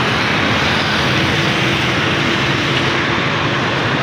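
Steady road traffic noise from a busy multi-lane city road: cars, motorbikes and auto-rickshaws passing.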